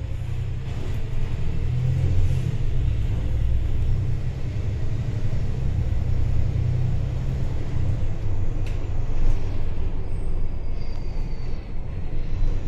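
City transit bus running along the street: a steady low engine and road rumble, with a couple of faint clicks.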